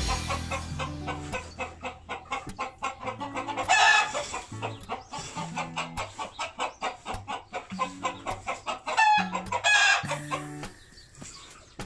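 Chickens clucking, with loud calls about four seconds in and again about nine seconds in, over background music with a steady beat and bass line.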